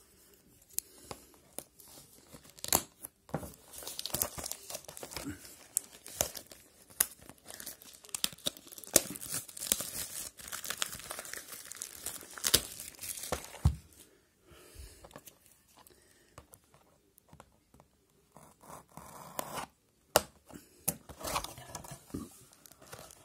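Plastic shrink-wrap being torn and crinkled off a sealed hockey-card hobby box: a dense run of sharp crackles, thinning out for a few seconds past the middle and picking up again near the end.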